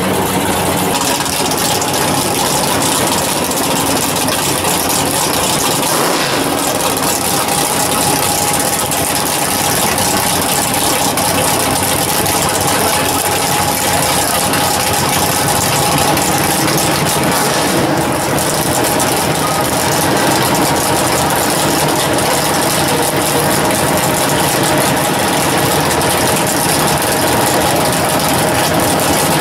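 Drag car engine idling steadily and loudly at the starting line, with no revving.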